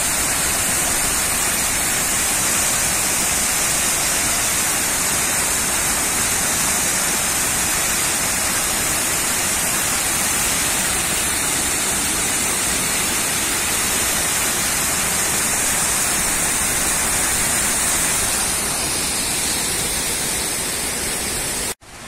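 Waterfall rushing: a steady, loud wash of falling water, dropping away abruptly just before the end.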